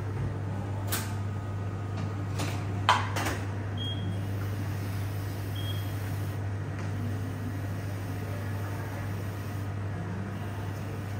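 Café bar room tone: a steady low hum with a few short knocks and clinks at the counter, the loudest about three seconds in, and two faint short high beeps a little later.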